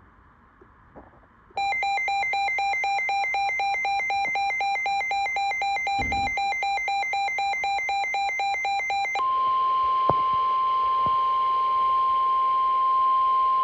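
Emergency alert broadcast tones. About a second and a half in, a loud electronic warble starts, alternating between two pitches about four times a second. Near nine seconds it gives way to a single steady high tone, the NOAA Weather Radio warning alarm tone, which runs on.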